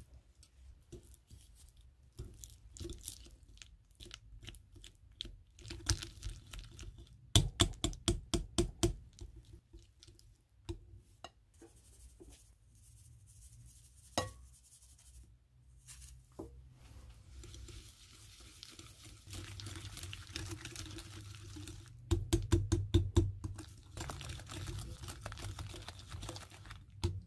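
Metal balloon whisk working soft butter in a glass bowl: scraping strokes, and spells of fast beating, about seven strokes a second, in which the wires click against the glass. There is a quieter pause midway, then steady whisking again to the end.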